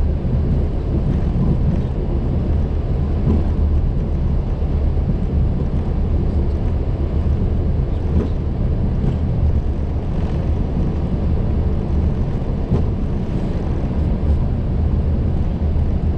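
Boeing 737-800 flight-deck noise while taxiing: a steady low rumble from the idling engines and the aircraft rolling along the taxiway, with a faint airy hiss above it.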